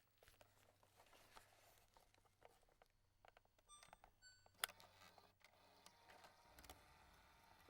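Faint plastic rattling and small clicks of a cassette deck's eject mechanism and a cassette tape being handled, with one sharp click a little past halfway.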